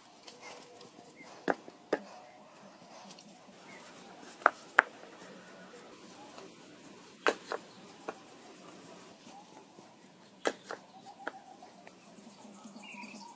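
Rough stones knocked against each other and set down on the rim of a freshly cemented pool: about ten sharp knocks, several in close pairs. Insects keep up a faint high buzz behind them.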